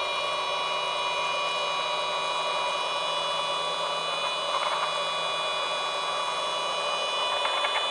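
Small USB-powered desktop vacuum cleaner motor running at full speed, a steady high whine with a hum. Faint rattles come about halfway through and again near the end as loose tea leaves are sucked through the nozzle.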